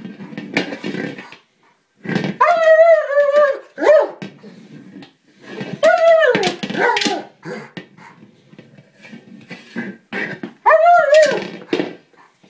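German Shepherd giving three long, pitched whining yowls about four seconds apart, with scuffling between them as it works at a plastic buoy: the frustrated cries of a dog that cannot puncture its toy.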